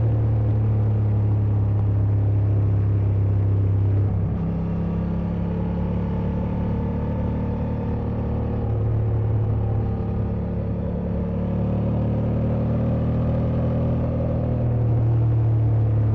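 Honda Transalp XL750's 755 cc parallel-twin engine running steadily under way at around 87 km/h, with wind noise. It goes a little softer about four seconds in and grows louder again near the end.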